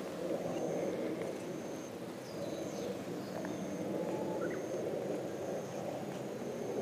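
Outdoor rural ambience: a steady low background noise, with a short high chirp repeating about once a second and a few faint chirps between.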